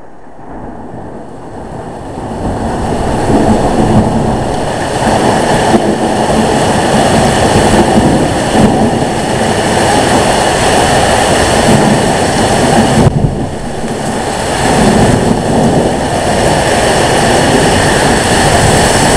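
Strong thunderstorm wind gusting across the microphone: a loud, steady rushing noise that builds over the first three seconds, dips briefly about thirteen seconds in, then stays loud.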